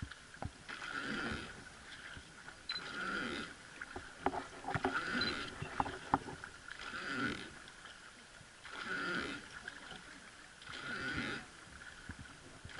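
Oar of a wooden river boat being rowed: a creak and slosh with each stroke, repeating about every two seconds, with a few sharp knocks in between.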